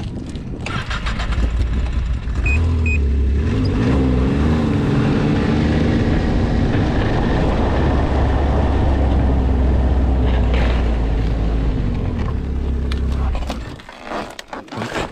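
Snowmobile engine running as the machine is ridden, picking up about a second in and shifting in pitch around four seconds in. It then holds steady and drops away near the end as the snowmobile slows to a stop.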